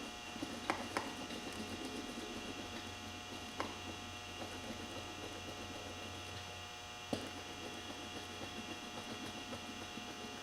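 Grooved stitching roller being worked over a plug patch on the inside of a tire to press it down, a faint scratchy rolling with a few sharp clicks, over a steady hum.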